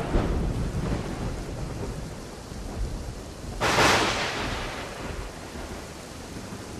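Thunderstorm sound effect: steady rain, with the rumble of a thunderclap dying away at the start and a fresh sharp clap about four seconds in that rolls off over a second or so; the rain thins near the end.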